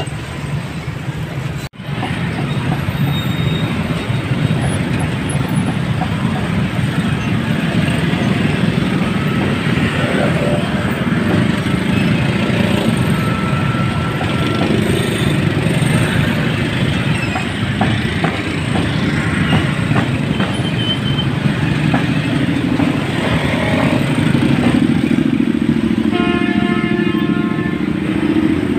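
Busy street traffic: a steady rumble of motorbike and car engines passing, with a horn sounding briefly near the end.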